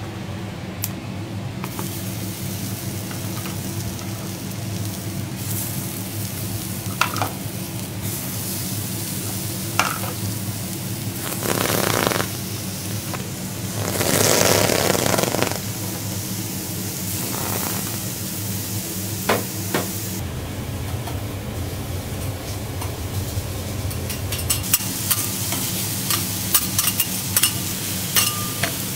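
Snow crab sizzling on a hot teppanyaki steel griddle, with two louder surges of sizzle around the middle as more pieces go onto the plate. Quick sharp clicks of metal utensils against the griddle come near the end.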